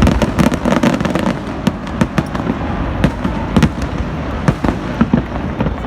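Fireworks display going off: a rapid, irregular string of sharp bangs and crackles, several a second, over a continuous low rumble.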